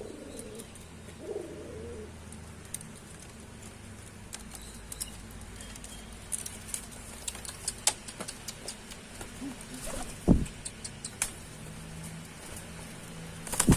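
Domestic pigeons cooing in courtship display (giring): low coos near the start and again near the end, with scattered light clicks and a brief low thump about ten seconds in.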